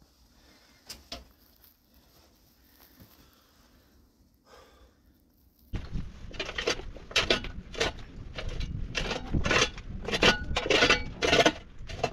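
Quiet at first with a few faint clicks. About six seconds in, a metal shovel starts digging into stony ground, about two scraping strikes a second as the blade grates on gravel and rock.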